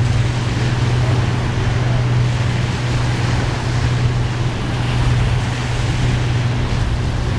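Small waves breaking and washing onto a stony beach, with wind on the microphone and a steady low hum underneath.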